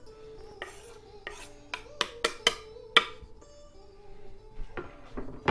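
Kitchen utensils and dishes clattering: a run of sharp clinks and knocks, bunched in the first three seconds with the loudest about three seconds in, and a couple more near the end.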